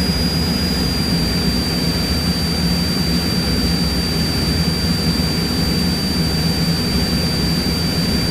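Cessna 172's piston engine and propeller droning steadily at climb power, heard inside the cockpit. A thin, steady high-pitched whine runs over the drone.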